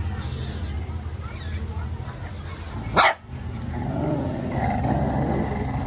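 Pet dogs playing and squabbling: a few short yaps and a sharp rising yelp about three seconds in, then a low growl.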